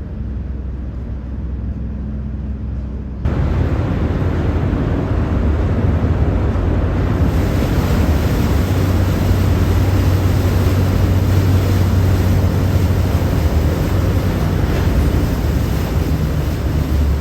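Steady low engine-like rumble mixed with wind noise on the microphone, becoming abruptly louder and fuller about three seconds in.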